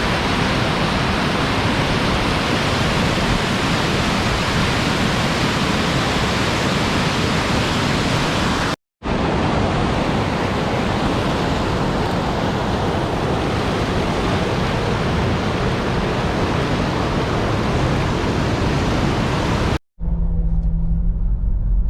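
Fast-flowing water of the South Fork of the Yuba River running high in flood: a steady, even rushing noise, broken by two brief cuts. Near the end it switches to a car's low, steady engine hum heard from inside the cabin.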